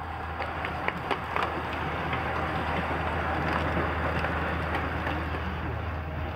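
A pack of racing bicycles sweeping past: a hissing whir of tyres and drivetrains that swells as the bunch goes by and then fades. A few sharp clicks sound in the first second and a half.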